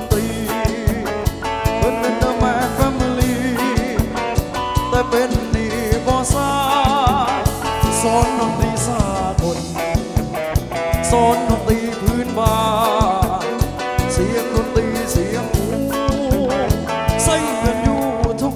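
Ramwong dance band playing a Thai folk-pop song through the mixer: a steady drum beat under a melody line that wavers in pitch.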